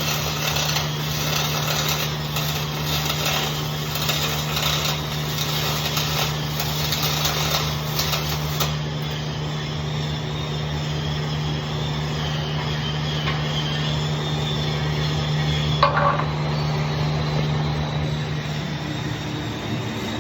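Stick welding: the arc crackles and spits over a steady electrical hum, and the crackle eases off about nine seconds in while the hum carries on.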